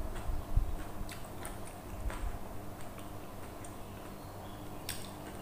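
Quiet eating by hand: scattered small clicks and smacks of fingers picking food off a plastic plate and chewing, with a couple of low bumps in the first second.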